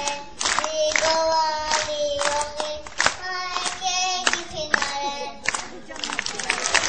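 A small child singing a high melody into a microphone, in held notes, with the audience clapping along about twice a second. Near the end the singing gives way to a dense burst of crowd noise.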